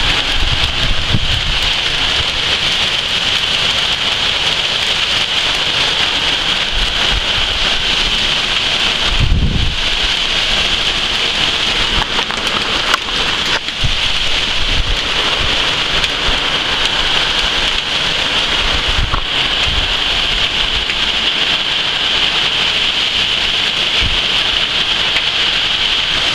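Heavy rain pouring down steadily in a thunderstorm, a dense unbroken hiss, with a brief low rumble about nine seconds in.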